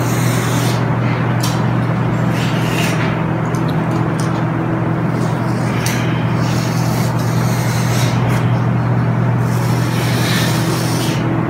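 A loud, steady machine drone with a hiss, holding one low pitch throughout. Short, irregular brushing strokes sound over it every second or so.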